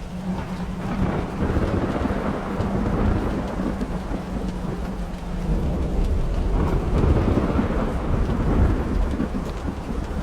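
Thunderstorm: long rolls of thunder rumbling over steady rain, one swelling about a second in and another around six seconds in.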